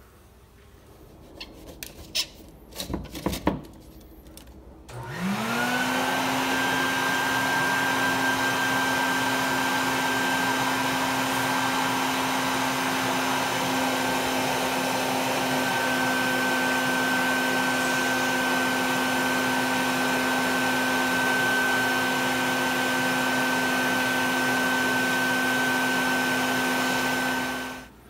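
A bee vacuum switched on after a few handling knocks: its motor spins up about five seconds in and then runs at a steady whine, sucking honey bees off the comb.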